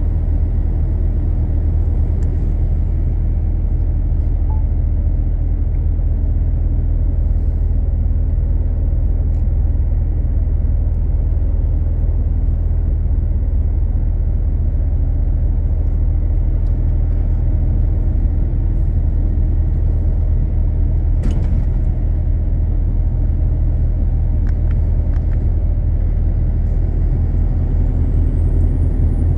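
Heavy truck on the road: a steady low drone of engine and road noise, with one sharp click about twenty seconds in.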